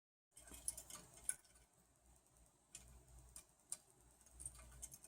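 Faint, irregular light clicks and taps, a few close together in the first second or so and more scattered later.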